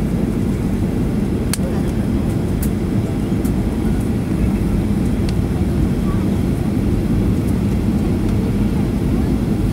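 Steady low drone inside a jet airliner's cabin on approach to landing: engine and airflow noise heard through the fuselage, with a few faint clicks.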